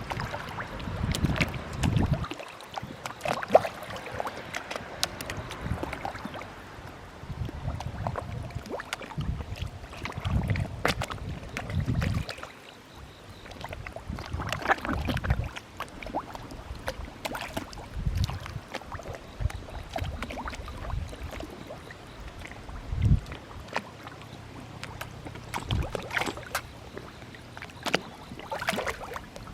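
Many koi splashing at the water surface as they feed, a steady stream of irregular splashes.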